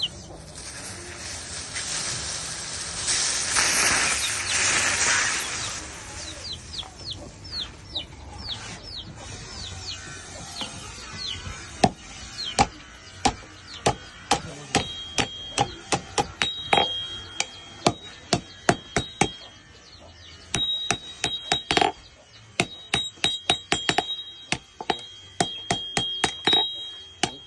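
A rushing noise for the first few seconds, then a long run of hammer blows on steel at an anvil, quick and uneven, many of them leaving a high metallic ring, as a blade for a palm-fruit harvesting tool is forged.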